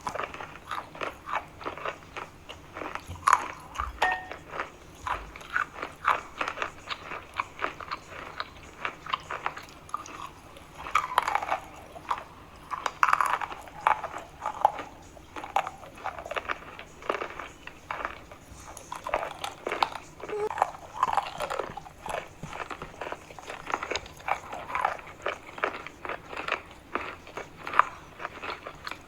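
Close-up biting and chewing of chalk: a run of sharp, dry crunches with softer chewing in between.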